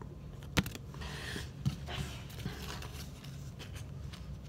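Trading cards being handled and set down: a sharp click about half a second in, then soft rustling and a few small ticks.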